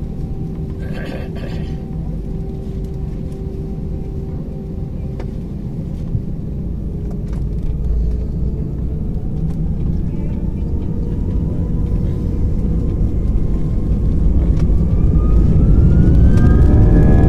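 Airbus A320 jet engines heard inside the cabin: a steady low rumble, with a whine that rises steadily in pitch and gets louder through the second half as the engines spool up for takeoff.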